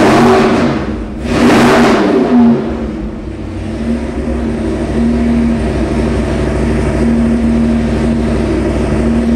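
Fuel-injected GM 502 big-block Chevy V8 crate engine running on an engine dyno. It is revved twice with the throttle blipped in the first couple of seconds, then settles to a steady idle.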